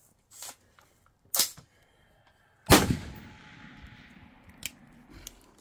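A single rifle shot from a Steyr AUG bullpup about two and a half seconds in, with a long echoing tail that fades over about two seconds. A shorter, fainter sharp crack comes about a second before it, and a few light clicks follow.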